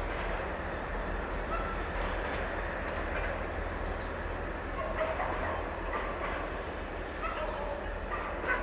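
Diesel multiple-unit passenger train running away along the track: a steady rumble of wheels on the rails and the diesel engine, fading slowly.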